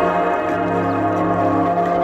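Background music of held, layered tones.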